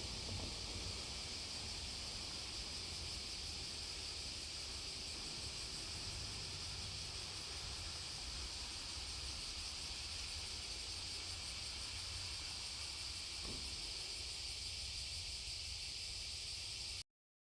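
Steady chorus of cicadas, a continuous high-pitched shrilling over a low outdoor rumble. It cuts off abruptly near the end.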